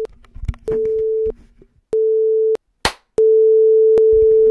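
Film-leader countdown beeps at one steady pitch: two short beeps a little over a second apart, then a long held tone, each starting and stopping with a click.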